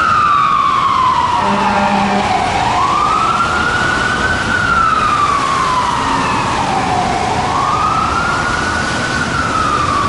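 Fire rescue truck's electronic siren on a slow wail, one tone rising and falling about every four and a half seconds. A short low steady tone sounds under it about a second and a half in.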